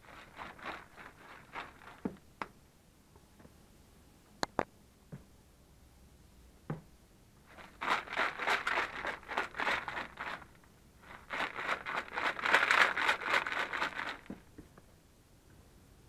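Water sloshing inside a Subaru Impreza's plastic coolant overflow reservoir as it is shaken hard by hand to knock loose the sludge built up inside, in two bouts of rapid strokes a few seconds each. A few lighter knocks and clicks of handling come before them.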